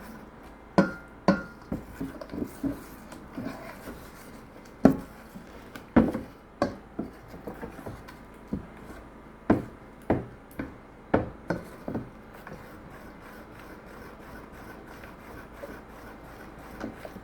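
A spoon stirring okpa (bambara nut flour) batter in a bowl, knocking irregularly against the side with some scraping between the knocks. The knocks stop after about twelve seconds.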